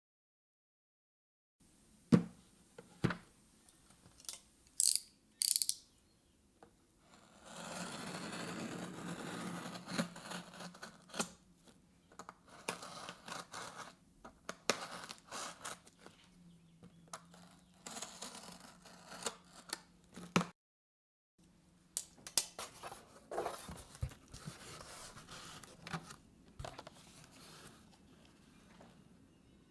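A keycap set's packaging being opened and handled: sharp clicks and knocks, and a long stretch of rustling and scraping of box and plastic, with scattered handling noises after it.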